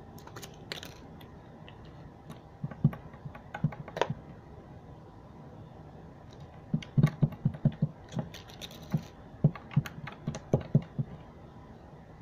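Slime being squeezed and poked by hand on a tabletop, giving quick runs of small wet clicks and pops: a short group a few seconds in and a longer run in the second half.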